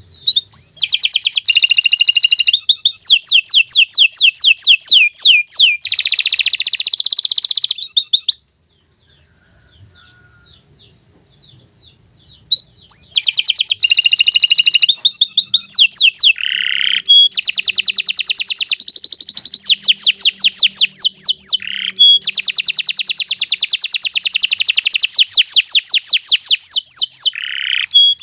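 Domestic canary singing long, rapid trilled phrases, pausing for about four seconds partway through before resuming the song.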